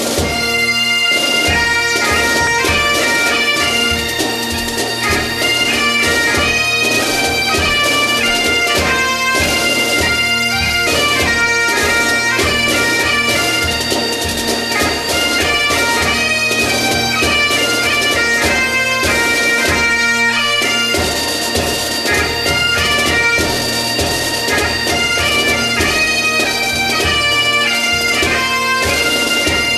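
Bagpipe music: a piped melody over steady droning tones, with a regular drum beat under it.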